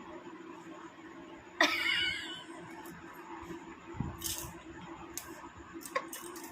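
A woman's sneeze that builds but does not come: a sudden voiced gasp about one and a half seconds in that trails off over about a second. It is followed by a few short breathy sounds.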